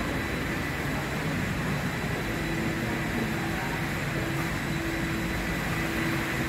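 Steady ambient noise inside an enclosed elevated pedestrian walkway: an even low rumble and hiss with a faint steady hum, no single event standing out.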